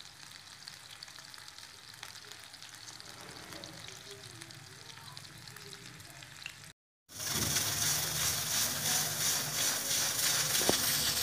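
Meat pieces sizzling faintly in hot oil in a flat iron pan. After a sudden cut about seven seconds in, a pressure cooker on the stove takes over, louder, with a steady hiss of venting steam and a fast rattle from its weight valve.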